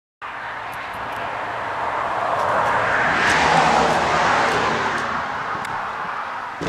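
A vehicle passing by: its road noise swells to a peak about three and a half seconds in, then fades away.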